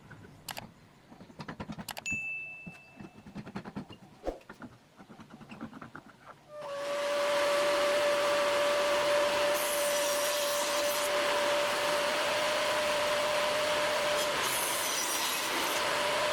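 Scattered clicks and knocks of tools and wood being handled. About six and a half seconds in, a power tool's motor starts and runs steadily at one pitch, with brief hissing spells that fit cutting into wood.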